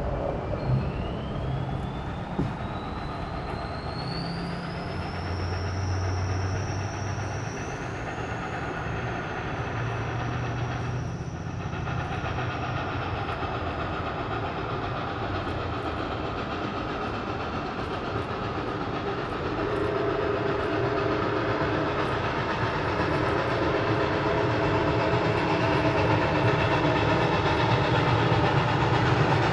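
Approaching steam train heard from down between the rails: a low rumble and rattle that grows louder over the last ten seconds. A high thin tone rises over the first several seconds, then slowly sinks and fades.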